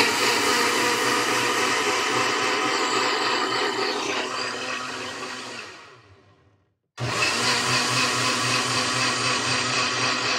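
Ninja personal blender running, blending a juice of pineapple juice, lime, cucumber and ginger. The motor winds down and stops about six seconds in, then starts again about a second later and runs on steadily.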